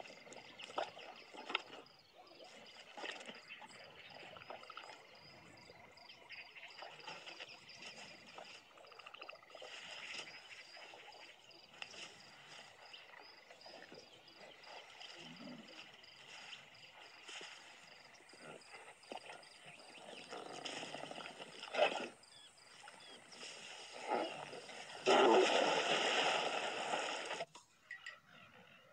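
Cartoon soundtrack of outdoor nature sounds: a steady row of faint, regular high chirps like insects, with scattered animal noises and short sound effects. A sharp hit comes about three quarters of the way in, and a loud rushing noise lasting a couple of seconds comes near the end.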